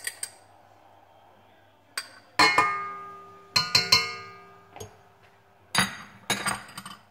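Kitchen utensil and mixing bowls clinking: sharp knocks in small clusters every second or so, each leaving a ringing tone that fades. Near the end the knocks come at the stainless steel bowl of a stand mixer.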